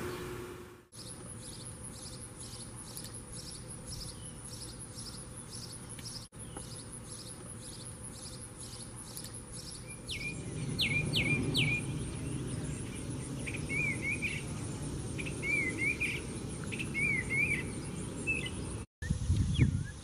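A steady high insect drone with a regular series of high pulses, about three a second. About ten seconds in, a male house sparrow takes over with repeated sharp chirps that sweep in pitch.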